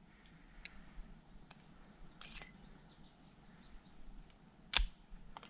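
Quiet background with a steady high insect buzz, then one sharp crack from the Springfield Armory Prodigy 9mm pistol near the end.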